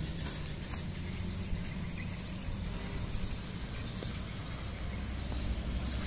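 Low rumble of a distant intercity bus engine as the bus drives into the terminal, with a run of faint high chirping in the first few seconds.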